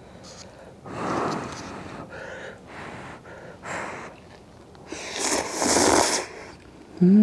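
Several puffs of breath blowing on hot instant udon noodles, then a longer, louder slurp of broth straight from the paper cup about five seconds in, ending with a short hummed 'mm'.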